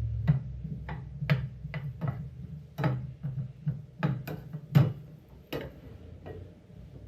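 A utensil knocking and clicking against a frying pan, irregular sharp taps while stirring sausage as it browns.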